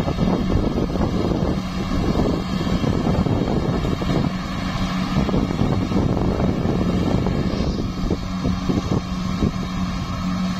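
Compact tracked rice combine harvester running steadily under load as it cuts and threshes rice, its engine holding a constant drone.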